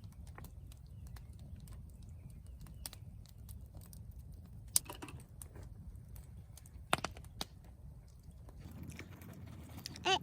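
Campfire crackling: irregular small pops and clicks over a low steady rumble, with a few sharper pops about five and seven seconds in.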